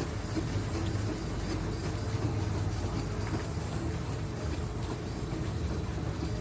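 A 7¼-inch gauge miniature steam train running along the track, with a steady low rumble of wheels and passenger cars on the rails. Over it runs a high-pitched sound that pulses several times a second.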